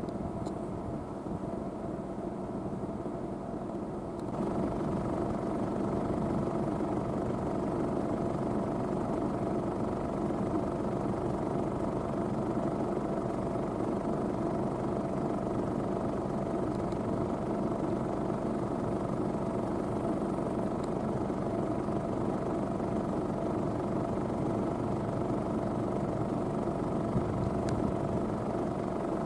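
Claas Medion 310 combine harvester running steadily, a continuous machine drone with several held tones; it gets louder about four seconds in.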